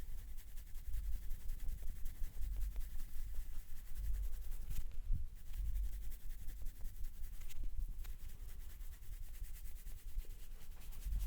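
Hands rubbing and kneading a scalp and hair during a head massage: soft, uneven rubbing with low thuds and rumble from the pressing hands.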